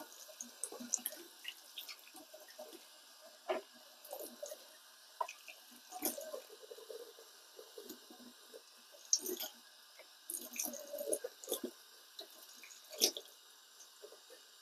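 Tap water running into a stainless steel sink as raw chicken pieces are rinsed by hand, with irregular splashes and small knocks as pieces are handled and dropped into a bowl; one sharper knock near the end is the loudest.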